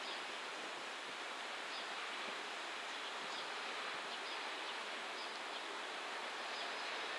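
Distant container freight train rolling slowly past, a steady even rolling noise with a few faint, short high squeaks.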